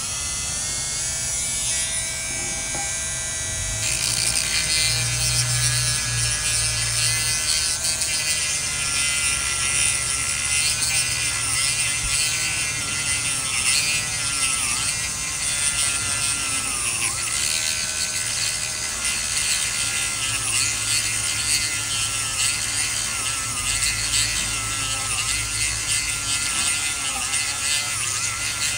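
Dremel rotary tool switched on and cutting into the end cap of a broomstick antenna tube: a steady high-pitched motor whine that dips in pitch again and again as the tool bites into the material, getting louder about four seconds in.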